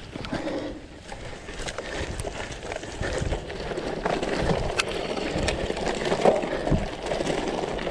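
Cyclocross bike ridden over bumpy grass and dirt, heard from a handlebar-mounted camera: a steady rumble of tyres on rough ground with frequent rattles and knocks from the bumps, louder after the first second or two.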